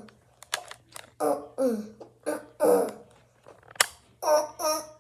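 A voice making a series of short, wordless sounds, many falling in pitch, with a sharp click near the end.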